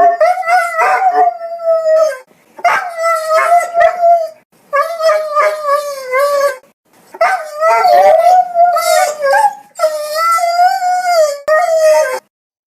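A dog crying in pain: a run of about five long, high, wavering whining howls, each one to two seconds long, with short breaks between them.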